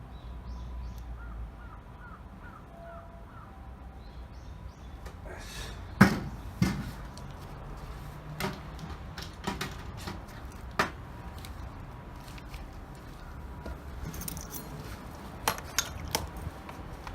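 Scattered sharp clinks and knocks, the loudest about six seconds in, over a low steady hum, with a run of faint short bird-like chirps in the first few seconds.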